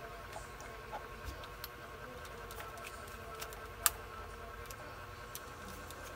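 Small scattered clicks and scratches of fingers handling a boost converter board and its wires at the screw terminals, with one sharper click about four seconds in, over a faint steady hum.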